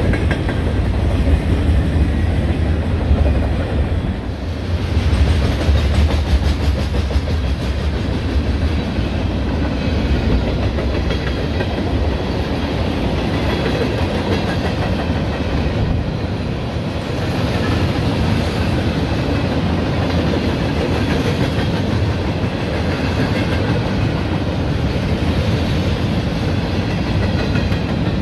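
CSX eastbound manifest freight train passing, its mixed freight cars rolling by steadily on steel wheels over the rails.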